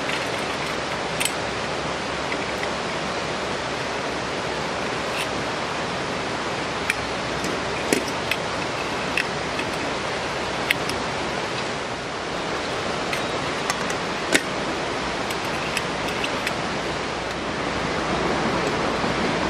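Steady rushing background noise, with scattered light metallic clicks and taps as the parts of a camping gas stove are handled and its pot supports folded out.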